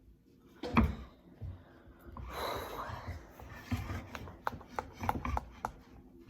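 Handling noise: a sharp knock about a second in, a stretch of rubbing, then a series of light clicks and taps as objects are moved and handled.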